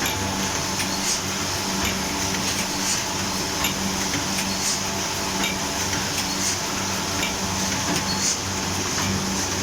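Automatic book wire-stitching machine running: a steady machine hum with a sharp clack about once a second as it stitches.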